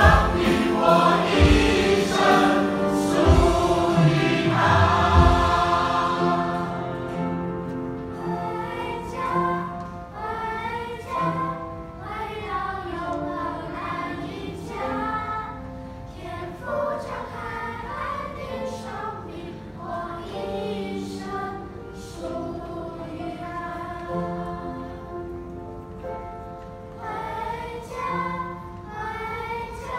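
Church choir of adults and children singing a Mandarin hymn with musical accompaniment. The music is louder for the first five or six seconds, then the singing carries on softer.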